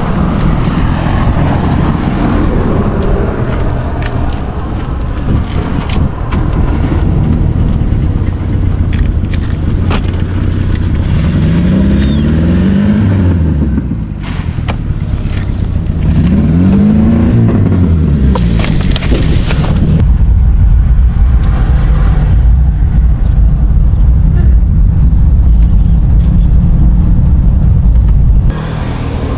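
Volkswagen Kombi van on the move, its engine a steady low rumble, revving up and dropping back twice about midway through as it works through the gears.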